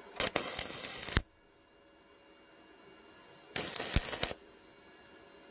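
Stick welding arc from a Paton ECO 200 inverter, crackling in two short bursts: about a second near the start, then just over half a second about three and a half seconds in. Each time the arc is struck and soon goes out.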